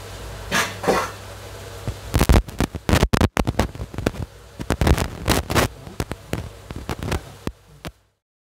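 A rapid, irregular run of sharp cracks and clicks over a low steady hum, starting about two seconds in and cutting off to silence near the end.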